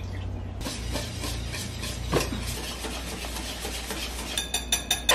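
Wire whisk beating a thin milk-and-instant-pudding mixture in a bowl by hand, a quick steady run of strokes, with a few sharp clicks near the end.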